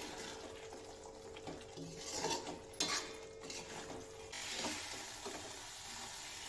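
Steel spatula stirring baby potatoes in thick spiced masala in a metal kadhai, with scraping strokes against the pan over a light frying sizzle. About four seconds in, the sizzle turns into a steadier hiss.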